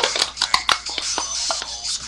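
Music with sharp, irregular percussive hits.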